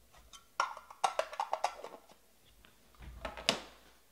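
Hands handling a stack of trading cards and a clear plastic card box. A quick run of sharp clicks and taps starts about half a second in and lasts over a second, then another short cluster comes about three seconds in.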